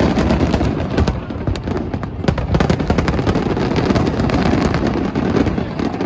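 Fireworks display going off over a river: a rapid, continuous string of booms and crackling pops, heard over the murmur of a large crowd.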